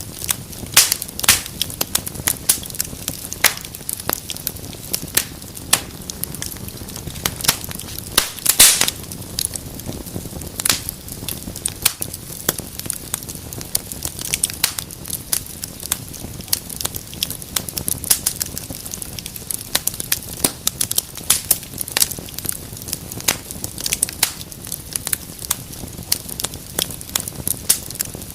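Wood fire burning in a fireplace: dense, irregular crackles and sharp pops over a low, steady rumble of flame, with a louder pop about eight and a half seconds in.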